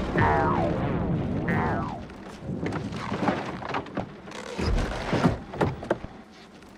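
Film sound effects of a car being thrown out of a tunnel and crashing into a mass of fungus. Two sounds fall in pitch in the first two seconds, then comes a run of thumps and knocks with a heavy low boom about halfway through.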